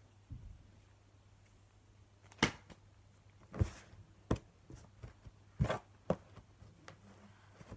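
Blu Tack slime being handled, giving a series of sharp clicks and pops at irregular intervals, with a softer thud near the start.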